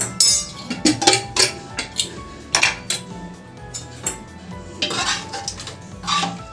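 Metal clanks as an aluminium pressure cooker's lid is worked free and lifted off, then a long steel spoon knocking and scraping inside the cooker as the cooked dal and vegetables are stirred. Faint background music runs under it.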